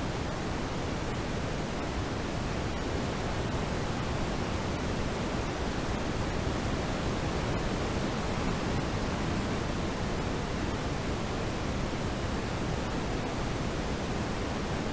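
Steady road and tyre noise inside a moving car's cabin: an even rush with no distinct engine tone.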